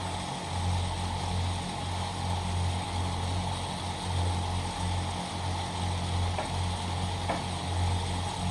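Steady low machine hum of a running motor, with a few faint clicks.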